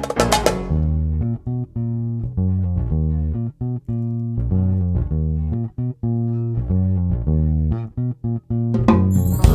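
Jazz track in which the drums drop out about half a second in and a bass guitar plays alone, a line of short plucked low notes broken by brief gaps between phrases. The drums and the rest of the band come back in near the end.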